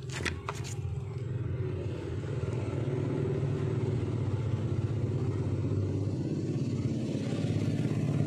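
An engine running steadily with a low rumble that grows slightly louder, with a few sharp clicks in the first second.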